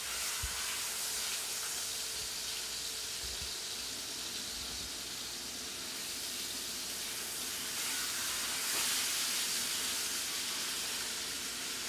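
Beef roast searing in a hot oiled frying pan: a steady sizzle that swells a little about nine seconds in. The meat is browning on its outside to build flavour and a fond for the sauce.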